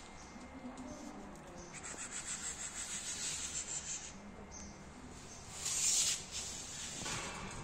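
Scratchy rubbing and handling noise on the recording phone as it moves, with a louder rush of hiss about six seconds in.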